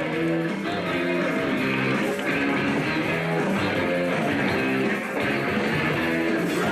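Guitar-led rock music playing at a steady level, an entrance theme.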